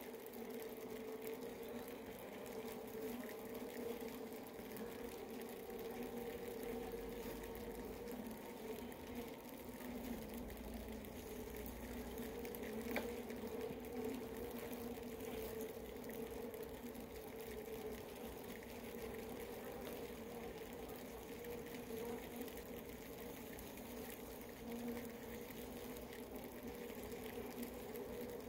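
Steady hum of a honeybee colony crowding over brood comb, held at an even pitch, with one faint tick about halfway through.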